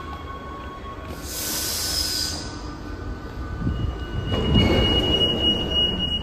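Rome Metro Line A CAF train standing at the platform: a short hiss about a second in, then a steady high warning tone from about four seconds in, with a louder rush of noise from the doors and boarding just after it starts.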